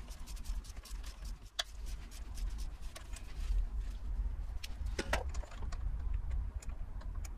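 Scattered clicks and light metallic knocks, with two sharper ones about one and a half seconds in and near five seconds, as the stub axle bolt in the gearbox output flange is undone with an Allen key. A steady low rumble runs underneath.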